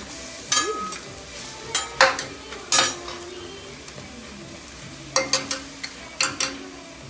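Egg frying on a hot teppanyaki griddle, a steady sizzle, with a series of sharp metal clacks from a chef's steel spatula striking the griddle plate.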